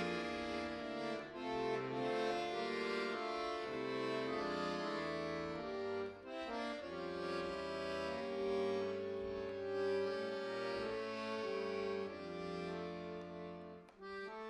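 Bayan, a Russian chromatic button accordion, played solo: sustained chords over held bass notes, with brief breaks between phrases about six seconds in and just before the end.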